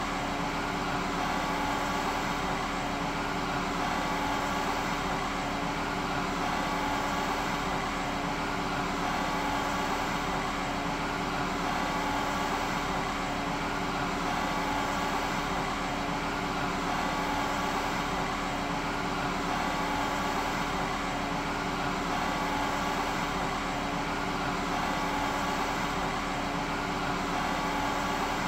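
Steady mechanical drone, like a running engine or fan: an even rushing noise with a constant hum of several fixed tones that does not change.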